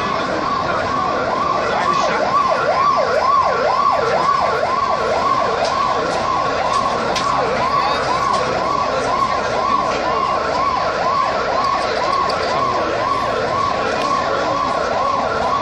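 Emergency vehicle siren wailing in a fast yelp, its pitch sweeping up and down a few times a second over a steady high tone.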